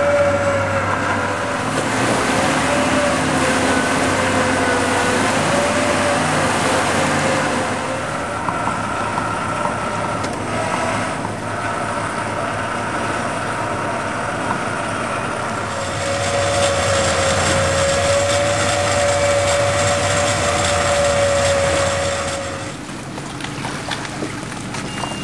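Electric boat winch motor running under load, a steady whine that wavers slightly in pitch as it hauls the boat in by its bow cable. It is quieter through the middle, louder again for several seconds, and drops away near the end.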